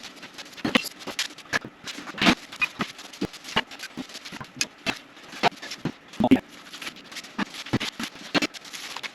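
Irregular clicks, taps and scrapes of small objects being handled and moved about, a few sharp knocks standing out among them.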